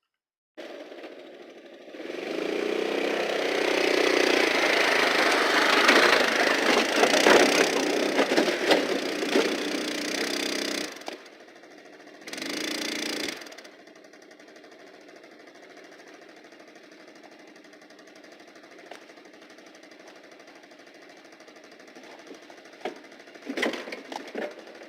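Chainsaw engine running: it comes in about half a second in, is run at high revs for about nine seconds, drops off, is revved once more briefly, then settles to a steady idle, with a few sharp knocks near the end.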